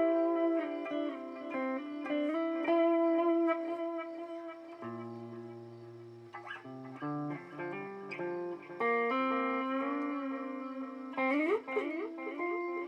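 Electric guitar played through a BOSS DD-8 digital delay pedal in Warp mode. The notes ring on and overlap in a wash of echoes, with a swooping pitch bend about eleven seconds in.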